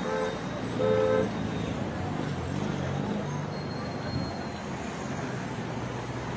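A two-tone vehicle horn toots twice in short blasts, right at the start and again about a second in, over a steady rushing background noise.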